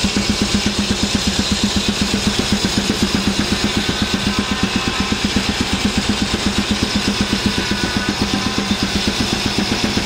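Belt-driven circular sawmill cutting a log, the blade's hiss over the engine that drives the mill, which pulses steadily at about seven beats a second.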